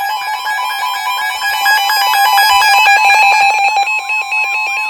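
NOAA Weather Radio alert tones opening a new warning: loud electronic steady pitched tones, rapidly chopped, joined about four seconds in by a steady tone near 1 kHz.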